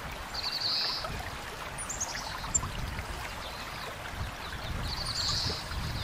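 Shallow running water trickling over rocks. A bird gives a short, fast trill about half a second in and again near five seconds, with a brief high chirp in between.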